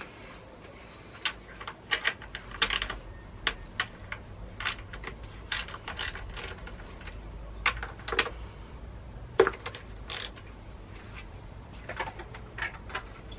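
Socket wrench on an extension bar undoing the small 10 mm nuts that hold an outboard's plastic fuel tank: irregular light metallic clicks and taps, a few a second.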